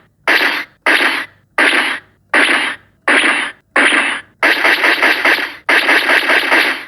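Casio SA-78 mini keyboard playing its tone-99 sound effect: a hissing noise with no clear pitch, set off key by key. It comes as about seven short bursts, then two longer held ones near the end.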